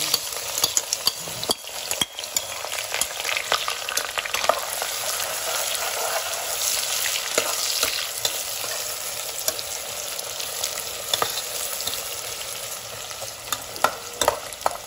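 Freshly added sliced onions sizzling in hot refined oil in an aluminium pressure cooker, with a steel spoon stirring and clicking against the pot, a few sharper clicks near the end.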